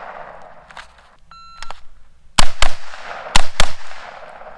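AR-15 rifle firing four quick shots in two pairs, about two and a half and three and a half seconds in, each followed by an echo. A short beep sounds about a second and a half in, just before the shots.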